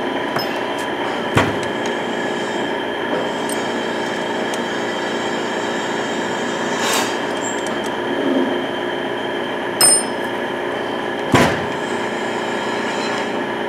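Steady drone of workshop machinery, a constant hum made of several fixed tones. Over it come a few short sharp clinks and knocks, about four in all, as the stainless steel steering wheel and small metal fittings are handled on the workbench.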